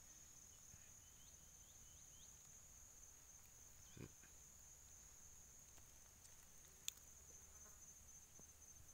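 Faint, steady high-pitched insect trill from the surrounding undergrowth. A soft low thump about four seconds in and a sharp click near seven seconds stand out over it.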